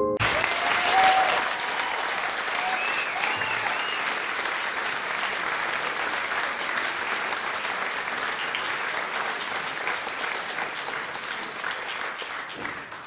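Crowd applause, many hands clapping with a few voices calling out over it in the first few seconds, greeting a good shot. It cuts in and stops abruptly.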